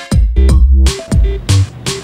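Electronic background music with heavy, sustained bass notes and sharp drum-machine hits.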